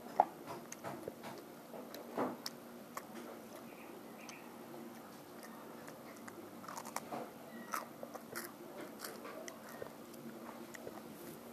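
Mouth sounds of someone biting and chewing right at the microphone: scattered crisp clicks and crunches, the sharpest just after the start.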